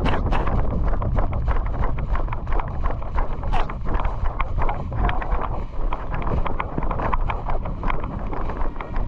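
Wind buffeting the microphone as a steady low rumble, over a quick, even rhythm of footsteps, several a second, from a player moving on foot.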